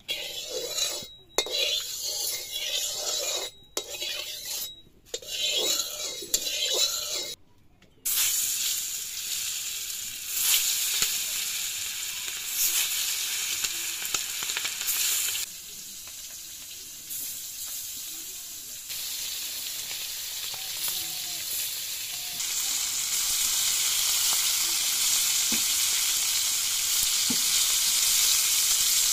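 Pieces of fish sizzling as they fry in hot oil in a metal kadai, with a metal spatula stirring and scraping in the pan. The sound comes in short broken stretches for the first several seconds, then settles into a steady sizzle that grows louder about two-thirds of the way through.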